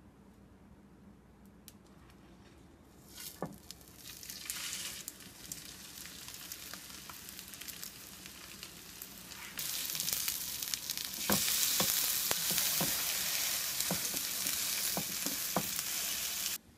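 Breaded meat cutlets frying in oil on a nonstick griddle, sizzling. The sizzle starts about three seconds in and gets louder in steps, with sharp clicks of a spatula against the griddle in the second half, and it cuts off suddenly near the end.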